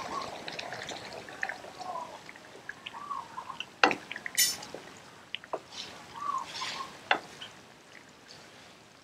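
Liquid in a pot on the stove, bubbling and sloshing as it is stirred with a wooden spoon, with scattered small clicks and clinks of kitchen utensils. Two sharper knocks come about four and seven seconds in.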